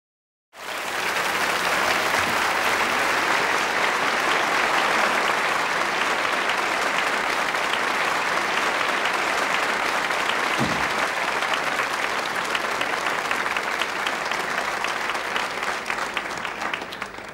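Studio audience applauding steadily, starting about half a second in and dying away near the end.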